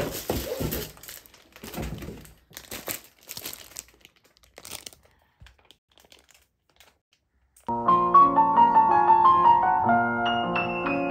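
Clear plastic bags of LEGO Technic parts crinkling and rustling in short bursts as they are handled, with a soft thunk or two, for the first few seconds. After a short near-silent pause, piano music starts about two-thirds of the way in.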